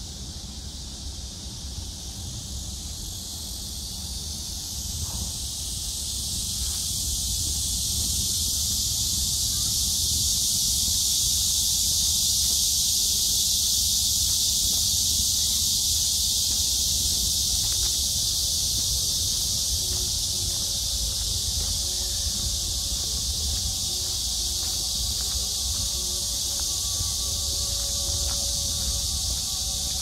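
A dense insect chorus: a steady high-pitched hiss that grows louder over the first ten seconds or so and then holds, with a low rumble underneath.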